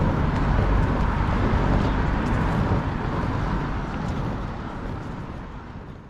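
Loud street traffic noise, a vehicle's rumble passing close by, that fades steadily away over the second half.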